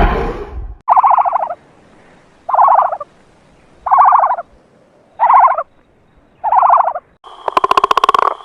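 Animal-like creature call sound effect: five short, rapidly pulsed rattling calls about one and a half seconds apart, then a louder, longer pulsed call near the end with a thin steady whistle-like tone above it. A loud noisy sound dies away in the first second.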